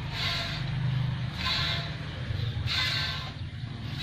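Milk squirting by hand from the teats into a metal pail, hissing jets about every second and a half, three times, over a steady low hum.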